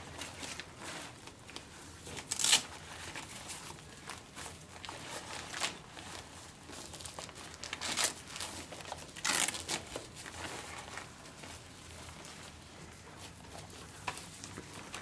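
Hook-and-loop (Velcro) straps of a pneumatic anti-shock garment being pulled open and pressed shut as the garment is fastened around the legs and abdomen, with the garment's fabric rustling. A few short ripping sounds stand out, the loudest about two and a half seconds in and others around eight and nine and a half seconds in.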